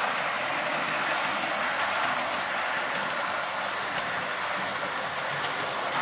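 Hornby 00 gauge LNER P2 model locomotive and its four model coaches running steadily past on the track: an even rolling noise of the motor and the wheels on the rails.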